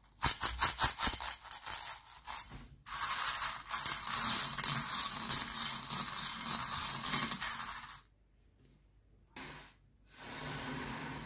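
Small hard-coated candies clicking and clattering on a plate, then a dense continuous rattle as a hand rakes and stirs through the pile for about five seconds before stopping abruptly. A fainter rustle follows near the end.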